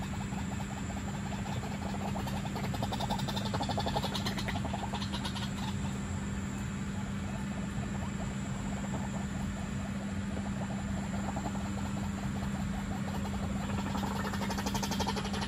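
White-breasted waterhens calling, a long run of rapidly repeated pulsing notes that swells about three seconds in and again near the end, over a steady low hum.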